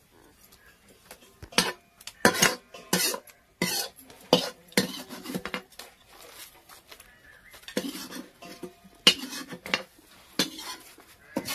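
A metal spoon clinking and scraping against stainless-steel bowls and a pot, in irregular sharp knocks, as curry is stirred and served.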